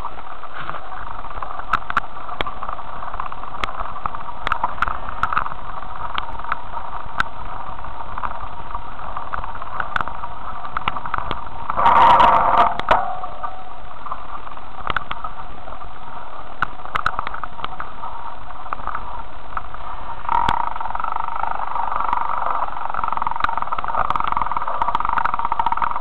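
Steady riding noise on a bicycle-mounted camera's microphone, with scattered clicks and knocks from the bike and camera rattling, and a louder burst of noise about twelve seconds in.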